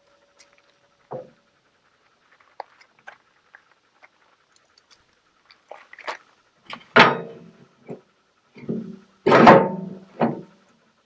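Heavy steel tooth bar knocking and clanking against a tractor loader bucket as it is set into place: light scattered knocks, then loud clanks about seven seconds in and again about two seconds later.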